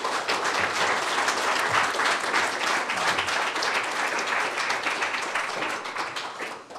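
Audience applause: many people clapping at once, starting abruptly and dying away near the end.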